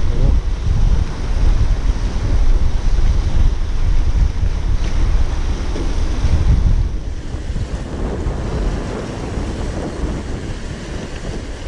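Wind buffeting the microphone in a loud, gusting low rumble, with sea surf washing on the shore behind it.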